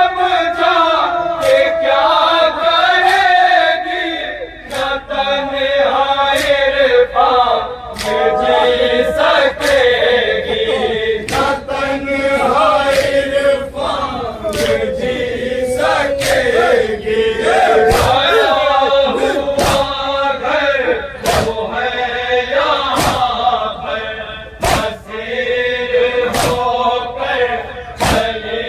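A group of men chanting a mourning nauha in unison, with sharp hand-on-chest slaps of matam keeping a beat about once a second.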